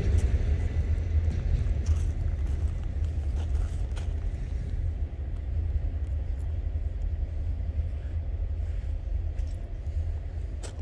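A long freight train rumbling in the distance as a steady low rumble that slowly fades as it draws away, with a few faint clicks.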